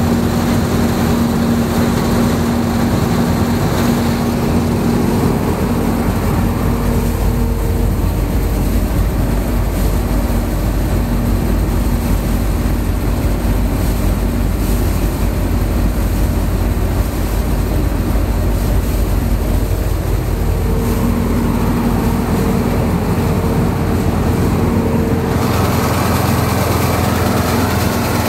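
Zmaj 170 combine harvester running steadily under load while harvesting soybeans: the engine and threshing machinery drone with a steady humming tone that fades in the middle and returns. About 25 seconds in, the sound changes as the higher, hissing part drops away.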